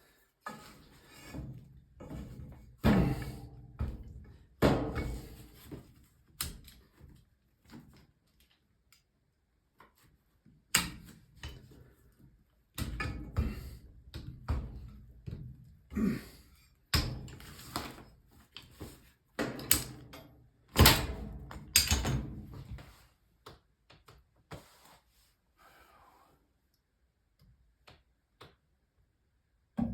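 Irregular knocks, thunks and short bursts of clatter, more than a dozen over the first twenty-odd seconds, then only a few faint ticks.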